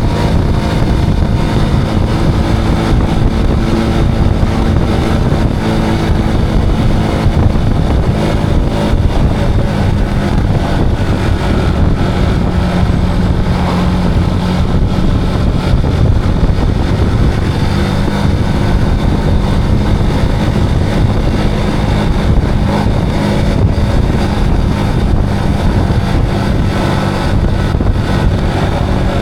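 Zontes cruiser motorcycle engine running at a steady pitch while riding, with wind rushing over the action camera's microphone.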